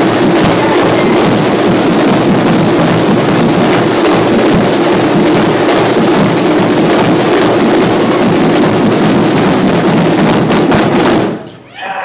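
Marching drumline of snare drums and bass drums playing a loud, dense drum fanfare that stops sharply about eleven seconds in.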